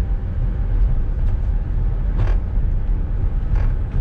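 Wolmi Sea Train monorail car running along its elevated guideway: a steady low rumble, with one short, sharper noise about two seconds in.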